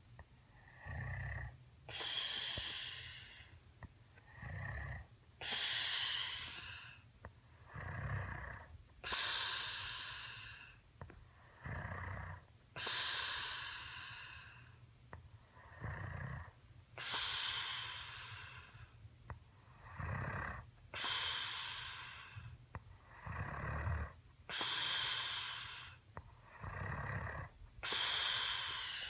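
Snoring in a steady rhythm: a short low buzzy snore followed by a longer, louder airy hiss, about eight cycles, one every three to four seconds.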